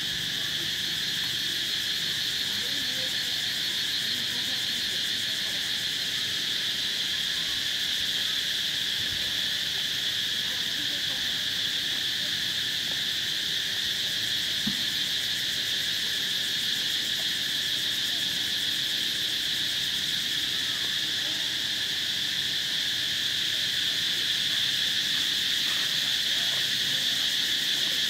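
Steady, unbroken high-pitched insect chorus, growing a little louder toward the end.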